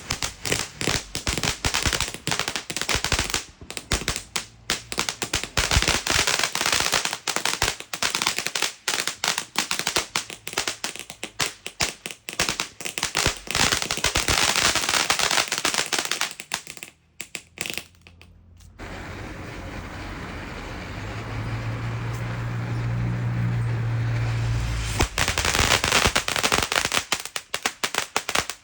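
Strings of firecrackers going off in long runs of rapid, crackling pops. The popping breaks off about 17 s in and gives way to a steady hiss with a low hum. Fast crackling starts again a few seconds before the end.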